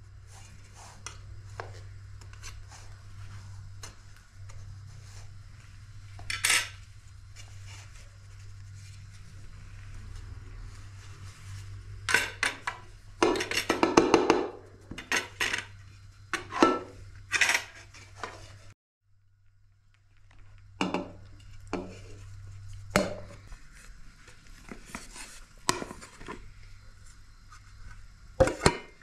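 A metal spoon scraping and clinking against the rim of a round metal cake pan as a baked sponge cake is loosened, then the pan and plate knocking and clattering as the cake is turned out, loudest about halfway through. Scattered clinks of the pan and plates follow, over a low steady hum.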